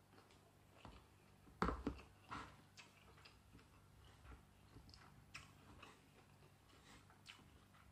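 Faint mouth sounds of a person chewing a spoonful of rice: scattered soft clicks, with a louder cluster of clicks and knocks about two seconds in.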